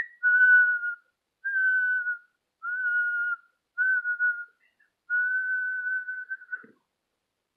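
A person whistling an imitation of a mourning dove's cooing call. There are five separate, steady whistled notes at one pitch; the last is the longest, at about a second and a half.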